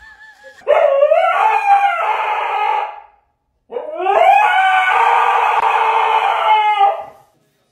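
A husky howling twice in long drawn-out calls, each sliding up in pitch at the start, the second one longer.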